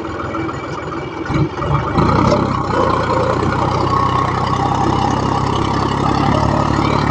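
John Deere 5050D tractor's three-cylinder diesel engine running steadily under load while pulling a mouldboard plough in low third gear. It grows louder about two seconds in, and the engine holds steady without bogging down.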